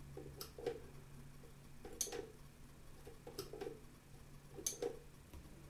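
A few faint, irregular clicks as the power switch and push-button of a relay circuit on an electronics kit board are worked.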